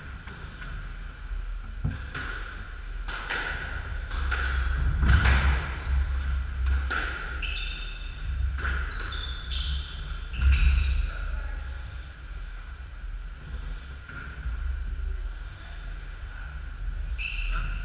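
Squash rally: the hollow crack of the ball struck by rackets and smacking the front and side walls about once a second, with shoes squeaking and thudding on the wooden court floor, all ringing in the enclosed court. The hits thin out after about eleven seconds, with one more near the end.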